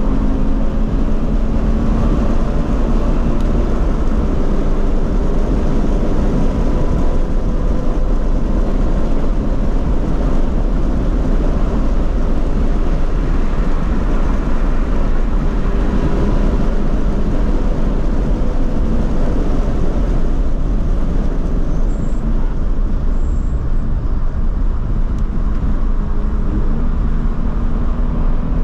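Steady, loud wind and road noise inside the cabin of a Toyota GT86 at speed on a racetrack, with the car's flat-four engine note faintly under it. The engine note stands out more at the start and again near the end.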